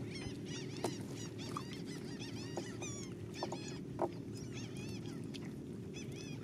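Birds calling throughout in quick runs of short, high, rising-and-falling chirps, over a steady low hum, with a few faint knocks.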